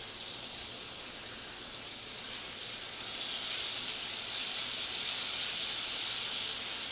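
Ribeye steak and asparagus sizzling in bacon grease and butter in a cast iron skillet: a steady frying hiss that grows a little louder about two seconds in.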